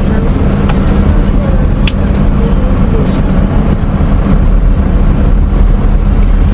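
Steady low hum of a car's engine and cabin as the car rolls slowly, heard from inside the car, with a couple of faint clicks.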